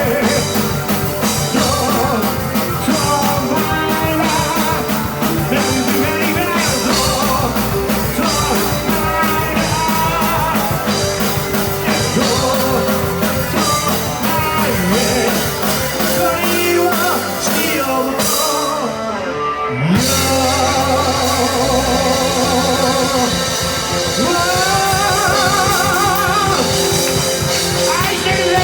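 Live rock band playing an instrumental passage: electric guitar over bass and drum kit. About two-thirds of the way through the sound briefly thins out, then a rising slide brings the full band back in.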